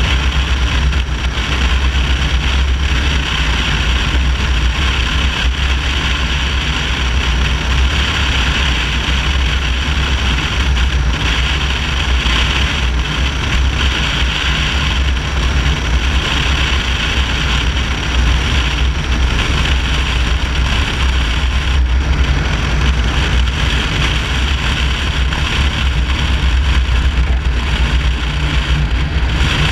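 Biplane's piston engine and propeller running steadily through the landing approach and onto the runway, mixed with loud wind rush over the nose-mounted camera.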